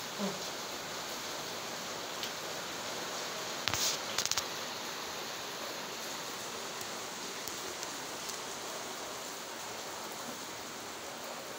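Steady rain falling on trees and rooftops, an even hiss. A short cluster of sharp clicks about four seconds in.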